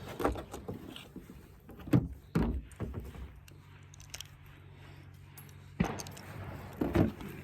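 Firearm being handled while getting ready to shoot: several sharp metallic clacks and knocks, the loudest about two seconds in, with a quieter stretch in the middle.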